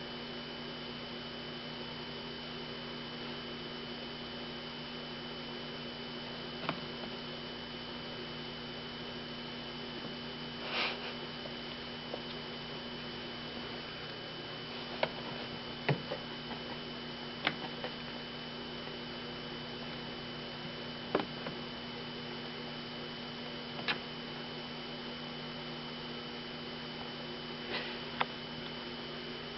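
Steady electrical hum, with a few short sharp clicks and taps scattered through it.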